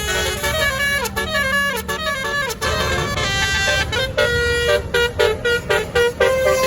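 Basuri telolet horn on a tour bus playing a fast melody of short notes that step up and down in pitch, over the low rumble of the bus's engine. The notes come quicker and choppier in the second half.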